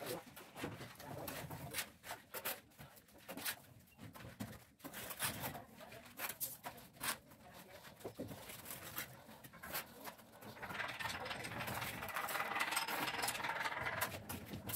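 Mason's trowel flinging cement mortar onto a bare brick wall: an irregular run of sharp splats and clacks, several a second. For the last few seconds a longer scraping noise runs under them.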